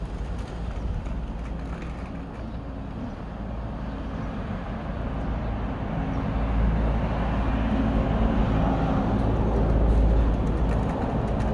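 Road traffic on an adjacent street: a steady low rumble that swells from about halfway through and is loudest shortly before the end, as a vehicle passes close by.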